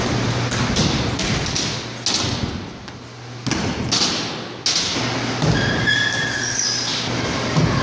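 Kick scooter wheels rolling over the concrete and wooden ramps of an indoor skatepark, with several sharp thumps and clacks of the scooter landing and hitting obstacles, echoing in the large hall. A steady low hum runs underneath, and a brief high squeak comes about six seconds in.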